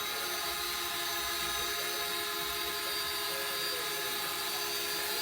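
A machine running steadily, a constant whine of several tones over a noise hiss.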